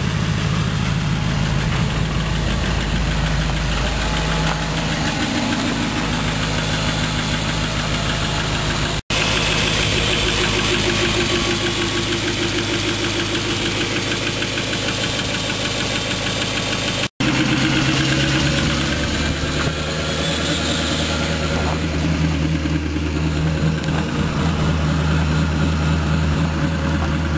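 Duramax 6.6-litre V8 turbodiesel, fitted with twin turbos, lowered compression and big injectors, idling steadily while still cold after a -7 °F start with no block heater. The sound drops out briefly twice and changes character at each break.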